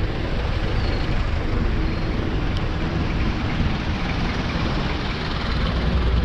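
Steady rushing road noise of riding a bicycle on a road with traffic, with wind on the microphone heavy in the low end.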